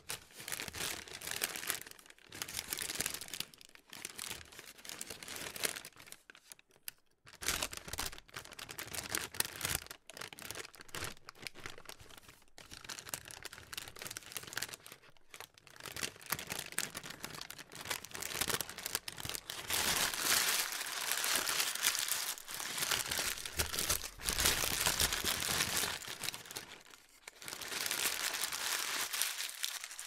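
Paper being crumpled and crinkled by hand: irregular crackling in bursts with short pauses, busiest and loudest in the second half.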